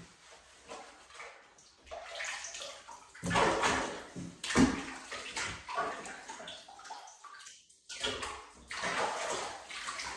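Bathwater splashing and sloshing in a tub as a yellow Labrador puppy is washed by hand, in irregular bursts, loudest a few seconds in.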